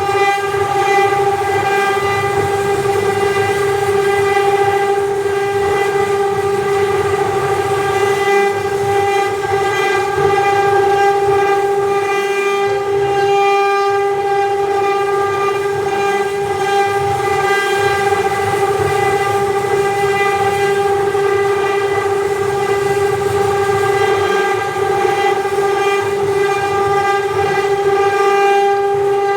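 CNC router spindle whining at a steady pitch while it carves a wooden door panel, with the rougher noise of the bit cutting the wood rising and falling underneath.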